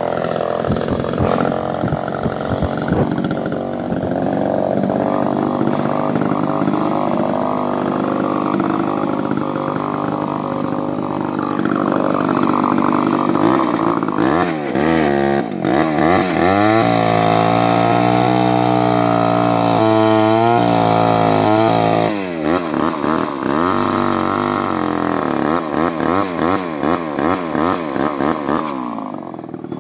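Chainsaw fitted with a 24-inch bar and full-comp .325 chain, running and cutting into a log. Midway the engine holds a lower, steady pitch for several seconds, then the revs rise and fall rapidly over and over near the end.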